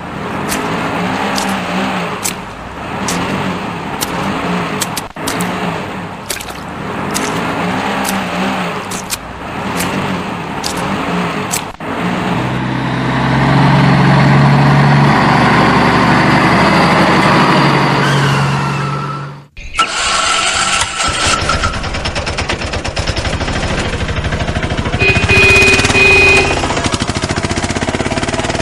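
Motor-vehicle engine sounds. A pulsing engine with regular clicks goes into a louder steady engine drone, which cuts off suddenly about two thirds of the way through. A different rattling engine sound follows, with a few short higher-pitched tones.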